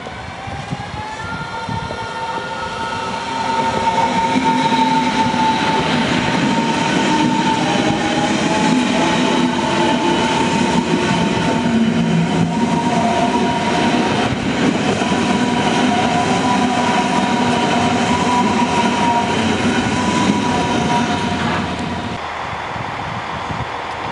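Berlin S-Bahn electric train pulling away from the platform and running close past, its traction motors whining higher over the first few seconds as it gathers speed, over a rumble of wheels on rails. The sound grows for about four seconds, holds, then drops away near the end.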